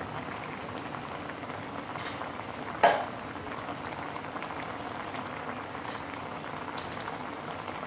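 Pork belly simmering in seasoned, sweetened water in a metal wok: a steady bubbling hiss. A single sharp knock about three seconds in.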